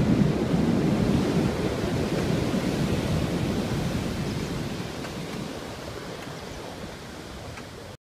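Ocean surf breaking and washing up a dark sand beach: a steady, even noise that fades away gradually over the second half.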